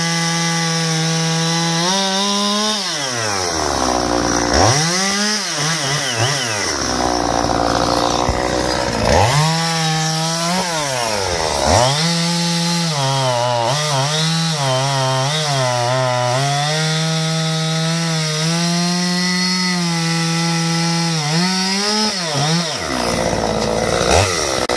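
An Oleo-Mac two-stroke chainsaw cuts through a felled conifer log, its engine held at high revs under load. Several times, around 3, 6, 11 and 23 seconds in, the revs fall toward idle and climb back up between cuts.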